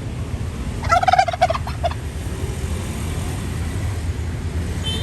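Turkey gobbling once, about a second in: a quick, rattling call lasting about a second, over a steady low rumble.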